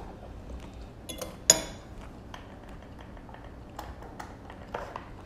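Metal fork set down in a ceramic bowl, clinking sharply once about a second and a half in, with a few fainter clicks and knocks after.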